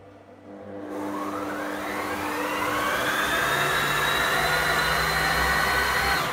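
Kitchen robot's blender motor running at medium power, churning a thick mix of frozen banana, protein powder and milk into ice cream. It starts about half a second in with a whine that rises in pitch as it spins up over the first two or three seconds, holds steady, and stops just before the end.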